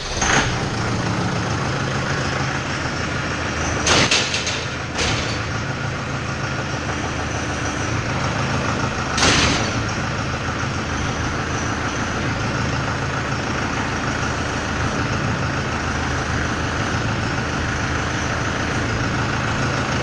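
Tractor engine running steadily while its hydraulics lift a round baler's pickup through the freshly resealed hydraulic cylinder. Short louder rushes of noise come about 4, 5 and 9 seconds in.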